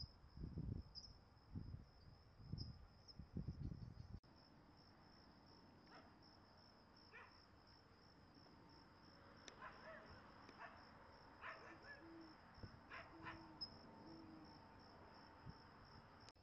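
Crickets chirping in a steady, faintly pulsing high trill. A low rumbling noise fills the first four seconds and cuts off abruptly, and a few faint short sounds come and go in the second half.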